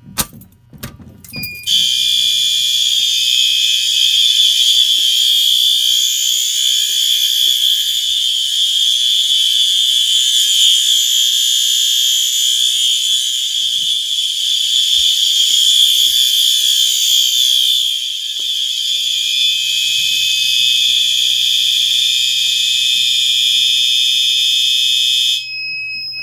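Several System Sensor SpectrAlert Advance fire alarm horns sounding together on high-volume continuous, a loud, steady blare that starts about two seconds in after a few clicks. It cuts off suddenly near the end, leaving a faint high tone.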